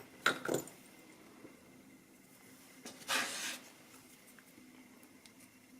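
A screwdriver and a padlock being handled during disassembly: two sharp metal clicks just after the start, then a brief scrape about three seconds in, with faint small ticks.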